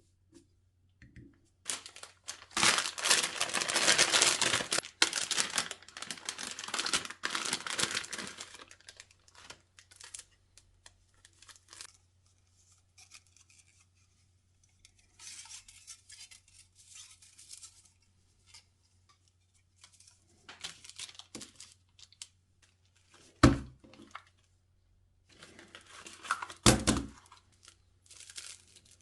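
Packaging being torn open and crinkled by hand, in a dense burst of tearing and rustling for several seconds, followed by scattered lighter rustles. Near the end come two sharp thumps a few seconds apart.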